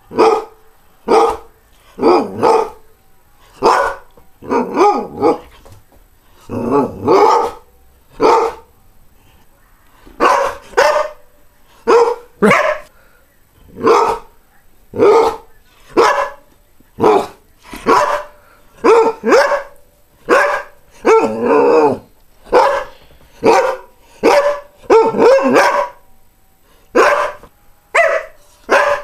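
Greyhound barking repeatedly, short sharp barks about one a second, with a few longer, rougher barks among them and a brief pause about nine seconds in.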